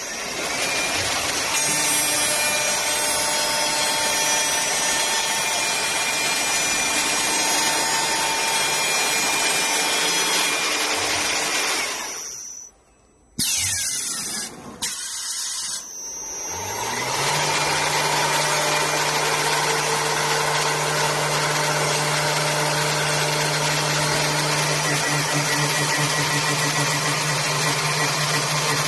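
4-axis CNC woodworking machine running, its spindle milling wooden furniture legs with a steady whining machine noise. It cuts out briefly a little before the middle, and after that a steady low hum takes over.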